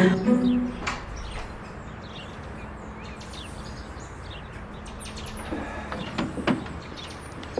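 Outdoor ambience: birds chirping over a steady background hum, with a few soft knocks about six seconds in.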